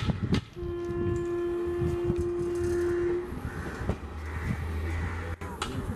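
Electric locomotive horn sounding one steady held note for nearly three seconds, over the low rumble and clatter of an approaching train.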